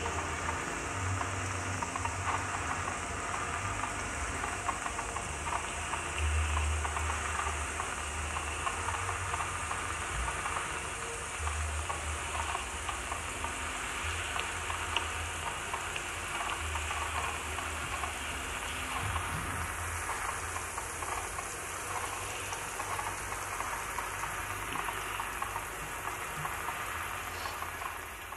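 Electronic soundscape of the dance score: a steady crackling, rain-like hiss over a low hum that swells in and drops back every few seconds, fading out at the end.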